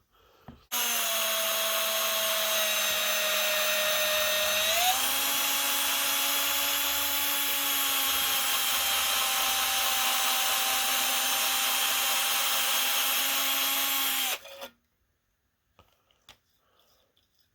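Power drill running slowly, spinning a soft brass brush on an extension inside a rifle chamber to scrub out old built-up gunk. Its steady motor whine steps up slightly in pitch about five seconds in, then cuts off suddenly, followed by a few faint clicks.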